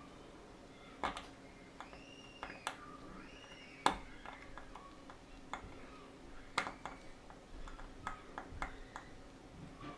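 Steel tweezers clicking against a Rolex 1556 watch movement while a very strong spring is worked into place: a handful of sharp metallic clicks, the loudest about four seconds in, over a faint steady hum. Faint rising-and-falling chirps come in between, a couple of seconds in.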